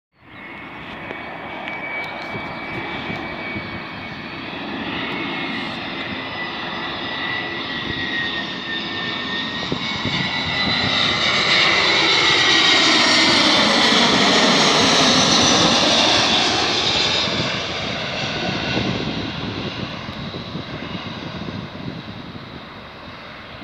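Airbus A321 airliner on landing approach with gear down, its twin jet engines' whine and rumble growing louder as it comes in low overhead. It is loudest for several seconds in the middle, with a sweeping, phasing whoosh as it passes, then fades as it descends toward the runway.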